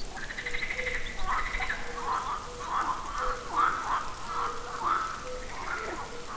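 A run of short animal calls repeating about twice a second, over faint steady background noise.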